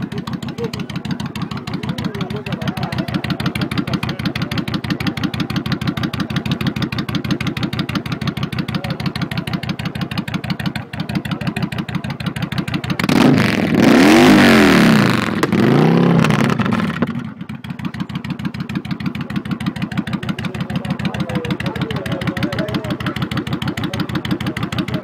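Harley-Davidson V-twin idling with a steady pulse through chrome staggered dual exhaust pipes. About 13 seconds in it is revved twice in quick succession, the loudest part, then drops back to idle.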